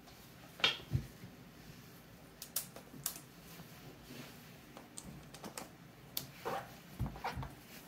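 Scattered light clicks and taps of a hard acrylic comic book slab and its screws being handled, with a few stronger knocks near the end.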